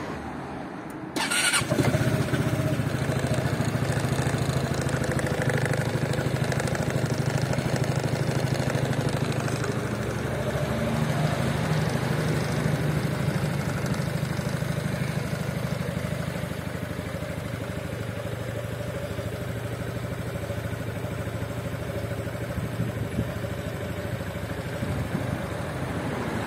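Piaggio Beverly 400 HPE scooter's single-cylinder four-stroke engine starting about a second in, with a brief crank, then idling steadily. It is a little quieter in the second half.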